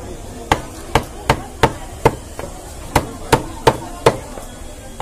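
A large knife chopping pieces of big head fish on a round wooden chopping block: about nine sharp chops, two to three a second, with a short pause in the middle.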